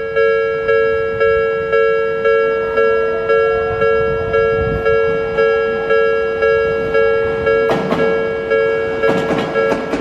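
Japanese level-crossing warning bell ringing continuously, about two dings a second. An Odakyu 3000 series electric train rolls onto the crossing from about eight seconds in, its wheels clacking over the rail joints.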